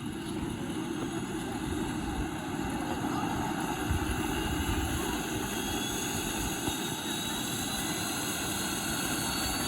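Model gas-turbine engine of an RC helicopter running with a steady rushing noise. A faint high whine climbs slowly in pitch over the second half.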